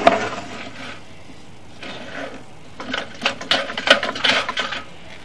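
Drain inspection camera head and push rod knocking and scraping along the inside of a sewer pipe as they are pushed down the line: a knock at the start, then a fast, irregular clatter about three seconds in.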